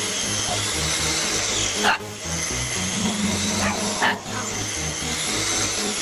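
Upright vacuum cleaner running steadily, its motor whining high over a rushing hum. Two short sharp sounds cut through it about two and four seconds in, the first the loudest.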